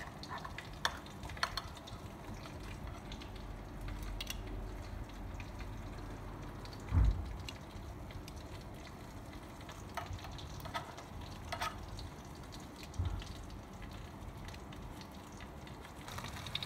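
Oil sizzling faintly and steadily in a pan, with scattered light clicks and two dull knocks about a third and three-quarters of the way through.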